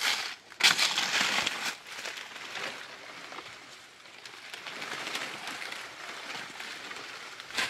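Dry leaves and plant matter rustling and crackling in irregular bursts as a banana plant is handled during harvesting, loudest about a second in.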